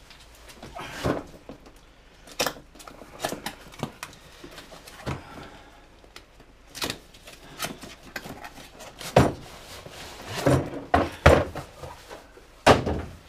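Handling of a boxed socket set on a wooden workbench: scattered knocks and clatter as the box is lifted, turned and set back down, with several louder thumps in the second half.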